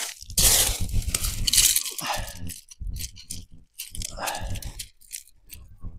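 Wind buffeting the microphone in irregular rumbling, rustling gusts, strongest in the first couple of seconds and then in shorter, weaker bursts.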